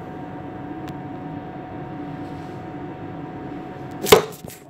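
Steady engine drone with a constant hum inside a small boat's cabin. About four seconds in, a sharp loud knock and a few smaller knocks and rubbing as the phone is handled and fingers cover the microphone.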